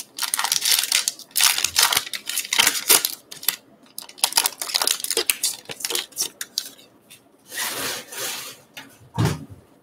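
Foil wrapper of a Topps Gypsy Queen baseball card pack crinkling and tearing as it is ripped open by hand, then a longer rustle as the stack of cards slides out, and a soft thump near the end.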